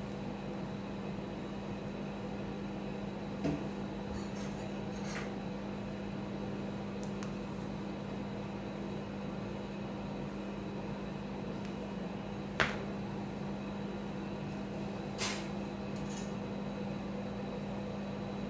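Ice cream roll machine's refrigeration unit giving a steady low hum, with a few short light knocks of a paper cup and spoon against the steel cold plate.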